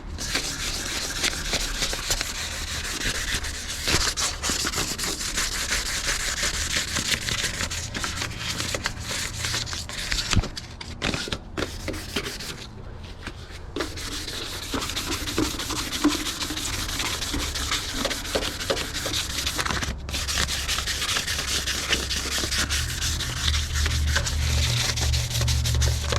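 Sandpaper being rubbed by hand over the painted sheet metal of a Nissan 350Z engine bay, wet-sanding to scuff the old paint before repainting. It is a steady scratchy rubbing, with a brief pause around the middle.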